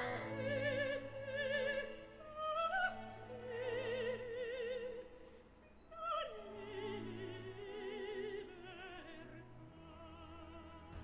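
Quiet recorded operatic singing: one voice holding long notes with strong vibrato, sliding between pitches, over soft sustained orchestral accompaniment. The voice drops out briefly a little past the middle, then returns.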